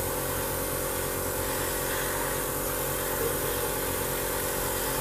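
Small electric motor running with a steady hum over a hiss.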